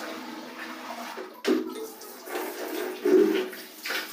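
Soapy wash water pouring and splashing out of a tipped plastic bucket onto a tiled bathroom floor, with two louder surges about one and a half and three seconds in.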